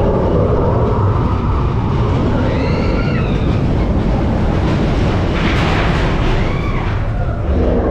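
Expedition Everest roller coaster train rumbling loudly along its steel track, heard from on board in the dark tunnel. A brief high wavering cry rises and falls about three seconds in, and a louder rush of hiss swells for about a second just past the middle.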